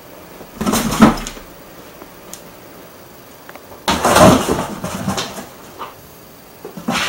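Cat jumping into and scrambling inside a large cardboard box: thumps and scraping on the cardboard, in three bursts about half a second in, about four seconds in and near the end.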